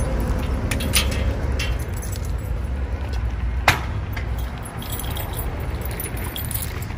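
Light metal jingling with a few sharp clicks, the loudest about three and a half seconds in, over a steady low rumble.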